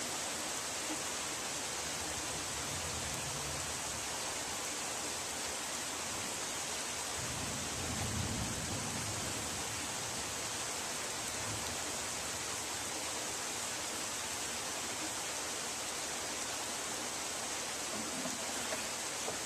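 Heavy rain pouring down on a yard and its trees: a steady, even hiss, with a brief low rumble about eight seconds in.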